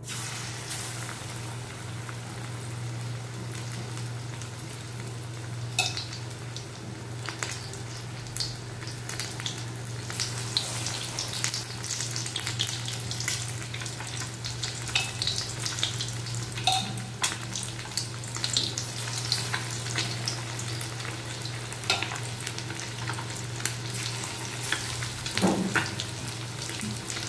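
Batter-coated mango fish (topse) deep-frying in hot oil in a kadai: a steady sizzle and crackle with sharp pops scattered through it. The sizzle starts as the fish go into the oil, over a steady low hum.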